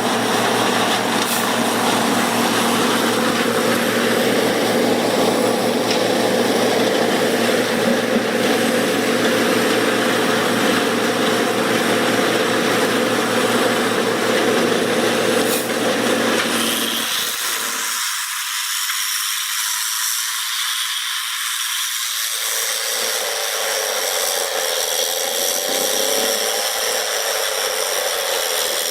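Heavy wood-processing machine running steadily under load. About two-thirds of the way in it changes to a thinner, higher grinding and cutting noise.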